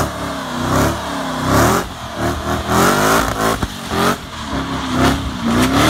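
Sports car engine revving hard and repeatedly, pitch rising and falling, during a burnout with the rear tyres spinning in thick smoke.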